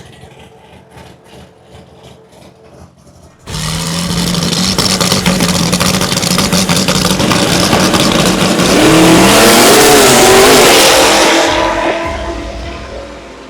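Drag car leaving the line and running down the strip: a quiet stretch, then a sudden loud burst of engine noise about three and a half seconds in. The engine pitch climbs in sweeps, loudest near the end, then dies away.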